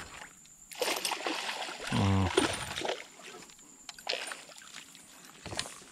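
Hooked bass splashing and thrashing at the water's surface beside the boat as it is reeled in and landed, the splashing strongest from about one to four seconds in.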